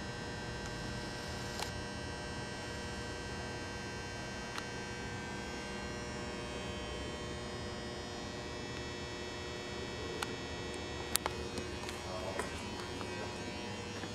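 Steady electrical mains hum made of several constant pitches over a low background noise, with a few faint scattered clicks and one sharper click about eleven seconds in.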